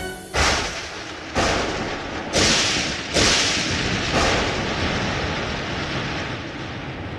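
Thunder: five sharp cracks about a second apart, each fading into a rumble that carries on.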